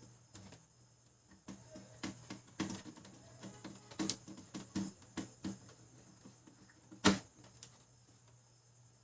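Irregular clicks, taps and knocks of printer gears and parts being handled and fitted back into a Brother DCP-L2540DW laser printer, busiest in the first half and with one sharp knock about seven seconds in.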